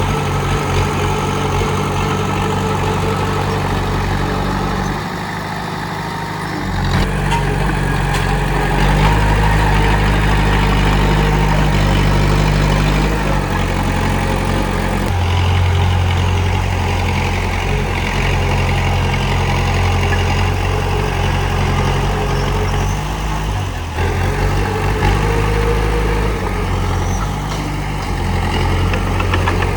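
Komatsu D31P crawler bulldozer's diesel engine running under varying load. It eases off briefly about five seconds in, then pulls harder again and keeps shifting in pitch and level as the work goes on.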